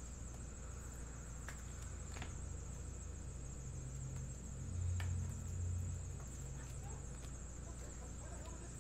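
Quiet room tone: a steady low hum and a faint high whine, with a few soft clicks and a brief low rumble about five seconds in.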